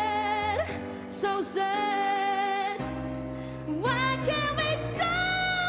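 A young woman singing with piano accompaniment, holding long notes with a slight waver.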